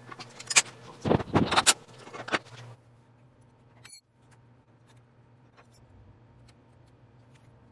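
Metal wrench and hardware clinking and clanking in a handful of sharp, irregular knocks during the first three seconds. After that the sound drops suddenly to faint room tone with a few light ticks.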